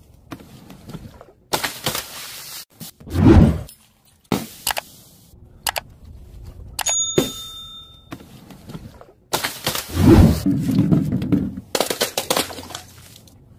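A string of paint- and powder-filled balloons bursting and splatting onto the ground one after another, with heavy thuds about three seconds in and again about ten seconds in. A short bell-like ding about seven seconds in.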